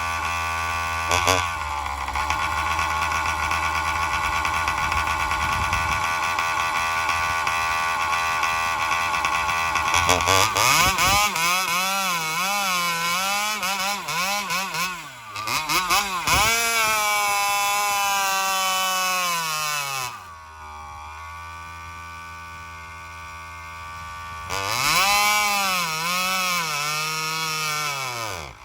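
Alcohol-fuelled Joncutter 5800 two-stroke chainsaw with a shortened exhaust pipe, running steadily at first and then revved about ten seconds in. The revs waver up and down and do not hold. It drops back to a lower steady speed, is revved again near the end and falls away. The saw is running poorly, and the owners suspect the fuel line or fuel filter cannot draw fuel fast enough.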